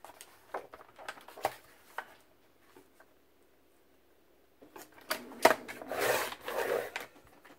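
Paper rustling and light taps as a sheet of scrapbook paper is positioned on a sliding paper trimmer. About five seconds in comes a sharp click and then a rasping scrape lasting a second or two as the trimmer's blade carriage is pulled along the rail through the paper.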